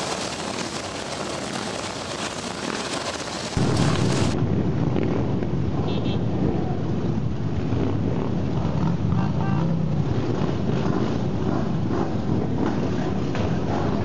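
A large pack of motorcycles running at slow procession speed. At first there is a steady, hissy wash of engine and wind noise. About three and a half seconds in it cuts to a louder, deeper rumble of many motorcycle engines close by.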